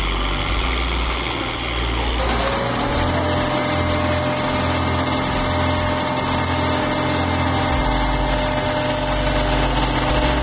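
Engine of heavy machinery running steadily. About two seconds in, the sound changes abruptly to a steadier engine hum with a held tone.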